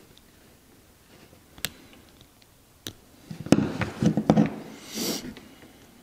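Small hand tools and flashlight tail-cap parts handled on a wooden workbench: two sharp ticks, then about a second of clattering knocks as pliers are picked up, and a short rustle near the end.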